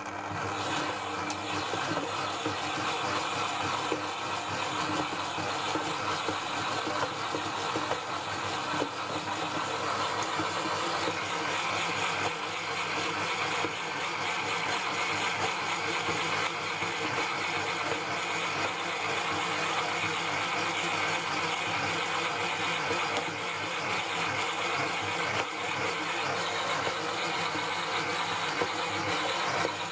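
Electric stand mixer running steadily, its dough hook kneading bread dough as water is worked into the flour.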